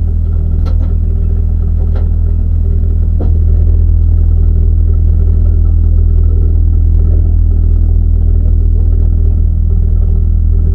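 Rally car engine idling steadily, heard from inside the cabin as a constant low hum. It gets slightly louder about three seconds in, and a few faint clicks come in the first seconds.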